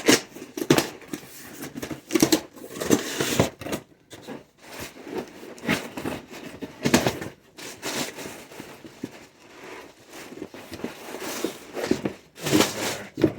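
A shipping package being opened by hand: irregular tearing and crinkling of packaging in short bursts.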